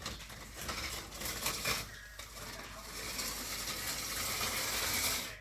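Model train running over sectional metal track, a steady metallic rattle and hiss with a few clicks, building in the second half and dropping off at the end.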